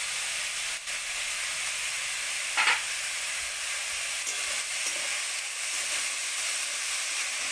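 Tomatoes and spices sizzling steadily in hot oil in a kadai as they are stirred, with one brief louder sound about two and a half seconds in.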